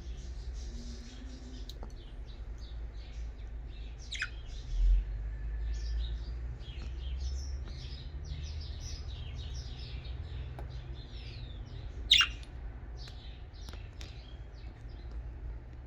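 Pet budgerigars chattering with many short, high chirps, and two louder calls that sweep down in pitch, about four seconds in and again about twelve seconds in. A low rumble runs underneath, with a dull thump about five seconds in.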